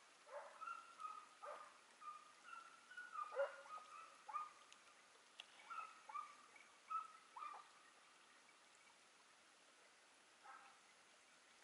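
Distant hounds baying in a broken series of short calls, each falling in pitch, on a hare's trail. The calls thin out after about eight seconds, with one more near the end.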